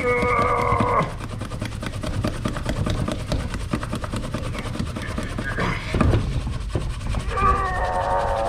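Microfibre scrubbing disc rubbed hard and fast round the inside of a small stainless steel pot, a steady rapid scratching rub, working at burnt-on pasta stuck to the bottom. A brief pitched sound rises over it in the first second and again near the end.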